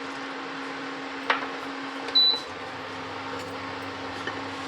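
Steady electrical hum of a kitchen appliance, with a sharp click about a second in and a short high electronic beep about two seconds in, after which a lower hum joins; another click near the end.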